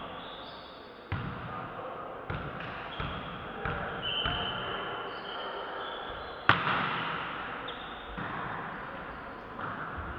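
A volleyball being struck and bouncing on a sports-hall court, each impact echoing in the hall, with the sharpest and loudest hit about six and a half seconds in.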